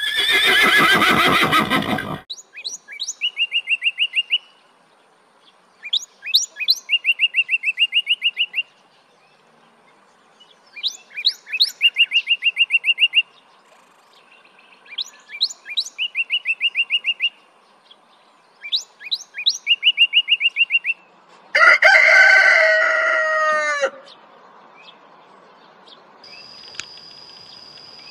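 A horse whinnies once, loudly. Then a Eurasian blue tit sings five times, each phrase a few thin high notes followed by a fast trill. About 22 seconds in comes another loud animal call of about two seconds, falling in pitch.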